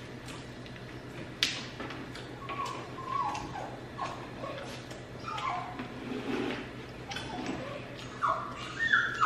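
Loud chewing and lip-smacking of sandwiches and noodles, with many short wet clicks and crunches. Several short high whines come in between, a few seconds apart.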